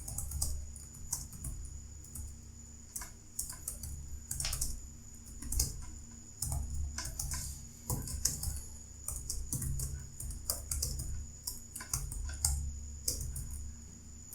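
Computer keyboard being typed on continuously, a quick irregular run of key clicks during a timed typing test.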